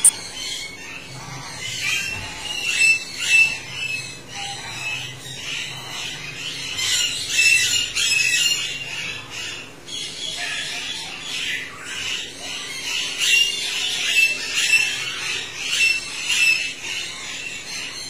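African grey parrot chick calling over and over in short, harsh calls, bunched in clusters with a short lull about halfway through.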